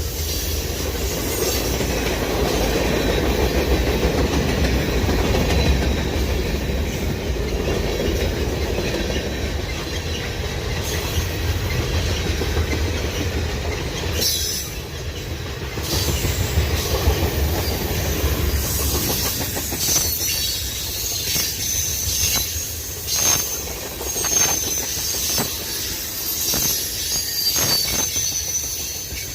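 Freight train cars rolling past: a steady low rumble for most of the first two-thirds, then irregular clicks of wheels over the rail joints, with a thin high wheel squeal.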